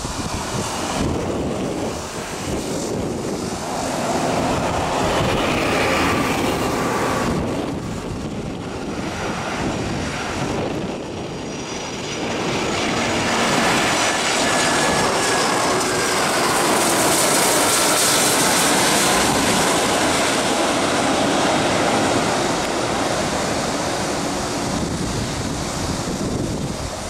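Airbus A330 airliner on final approach, landing gear down: a steady jet-engine rush that grows louder to a peak about two-thirds of the way through as it passes, with faint whines falling in pitch, then eases off.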